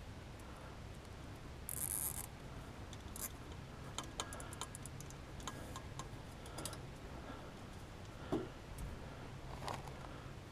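Nylon zip ties being pulled tight, their ratchets clicking in quick runs, among faint handling clicks and knocks against an aluminium cart frame.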